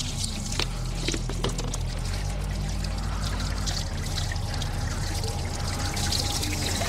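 Water running from a garden hose, pouring and splashing onto wet pavement and a pet-circle panel, with a few light knocks from the panel being handled in the first second and a half.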